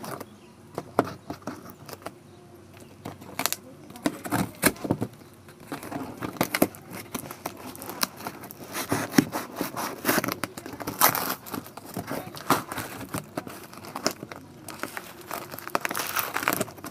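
A knife blade slitting packing tape and cardboard on a shipping box, with irregular scraping, crackling and tearing as the tape and cardboard are cut and pulled apart.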